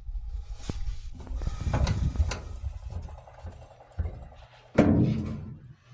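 Clunks, clicks and scraping from hands working on parts inside an opened dryer, with a louder rustling knock about five seconds in.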